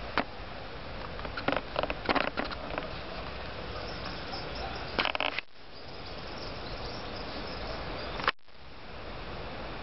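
Steady outdoor background hiss with a series of short knocks and clicks, the sharpest one near the end. The level drops suddenly twice, after the clicks about five seconds in and after that last knock, then slowly creeps back up.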